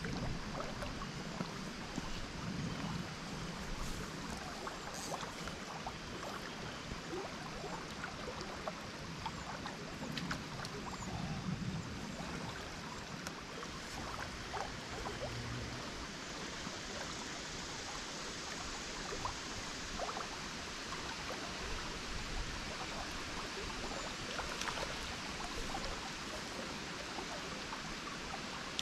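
Small river flowing steadily past logs and banks: an even rush of running water with scattered small ticks and splashes.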